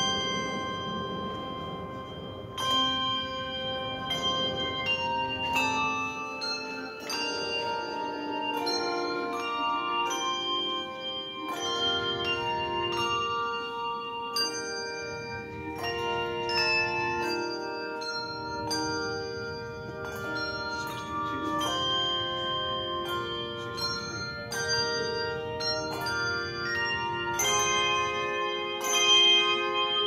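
Handbell choir playing a tune, many bells rung in turn and together, their notes ringing on and overlapping one another.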